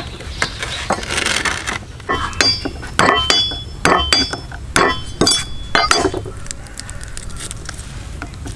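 A broad kitchen knife striking a thick wooden chopping block while working garlic cloves: a dozen or so sharp knocks, several with a short metallic ring. The knocks stop about six seconds in, leaving quieter hand handling.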